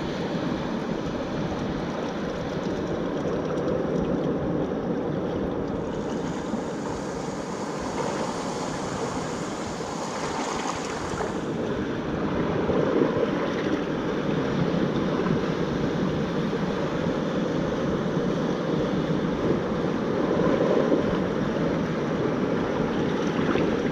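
Surf breaking and washing around in shallow water, with some wind on the microphone. The hiss of the water grows brighter for about five seconds around the middle.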